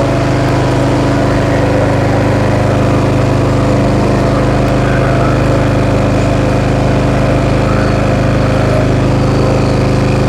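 John Deere F525 mower's engine running steadily after its tune-up.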